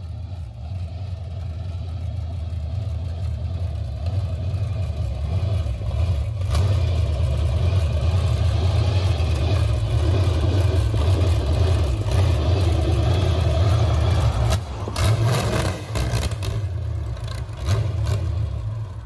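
Small-block Chevy V8 in a riding lawn mower running through its headers as the mower drives, the engine sound building over the first several seconds. Near the end it stumbles and cuts in and out, then dies abruptly, which the riders take for running out of gas.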